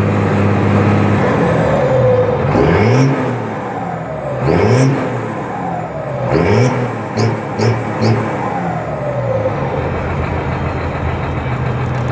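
Diesel farm tractor engine idling, then revved up and let back down about four times, each rev rising and falling in pitch over a second or so, before settling back to a steady idle near the end.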